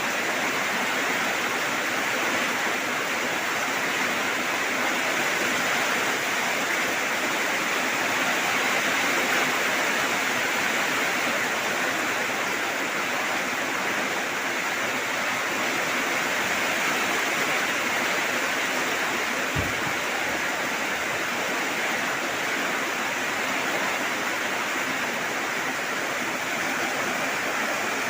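Steady heavy rain falling, an even hiss with no breaks. A single brief low thump comes about two-thirds of the way through.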